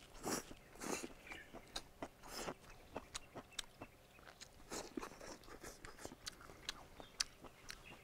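Slurping and chewing of stir-fried rice noodles, close to a lapel microphone: several drawn-in slurps, with quick wet smacks and clicks of chewing between them.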